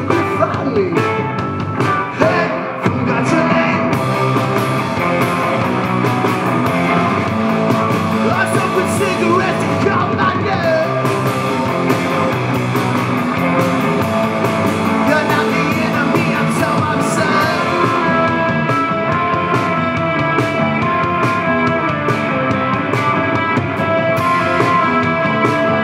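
Rock band playing live and loud, with electric guitars and drums going steadily.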